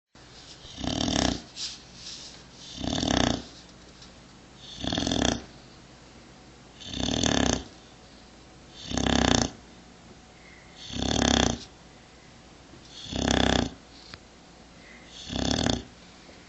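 A pet dog snoring in steady sleep: eight regular snores, about one every two seconds.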